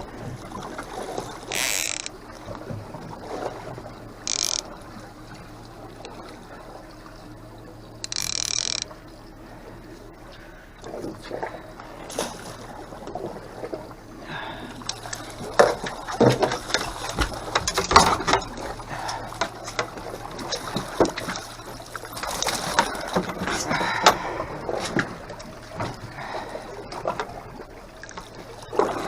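Three short hissing bursts in the first nine seconds, then many irregular knocks, clicks and rattles of fishing gear and a freshly landed king salmon being handled in a small boat, over a steady low hum.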